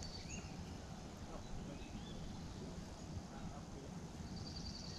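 Faint bird calls, a few short rising chirps now and then, over a low steady background rumble.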